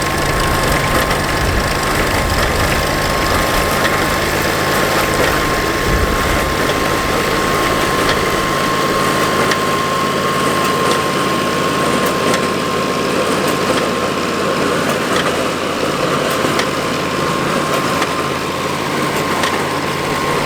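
Engine of a tractor-driven New Holland 76 baler outfit running steadily as the baler works, with a steady high tone and faint scattered clicks throughout.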